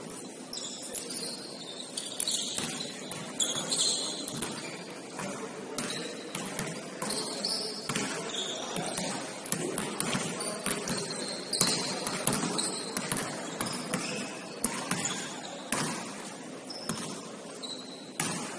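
Basketballs bouncing on a gym floor as irregular thuds every second or two, with short high sneaker squeaks on the court in between.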